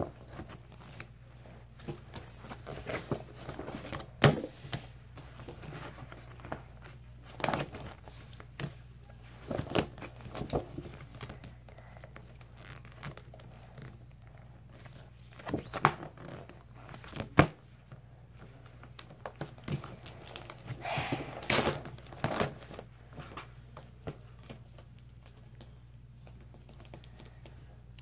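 School folders being handled and stacked: rustling and crinkling, with sharp slaps and taps at irregular intervals and a longer rustle a little past two-thirds of the way through.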